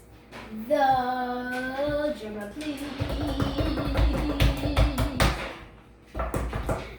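Music with a singing voice: one long held sung note about a second in, then a fuller stretch with a low beat that stops about five seconds in.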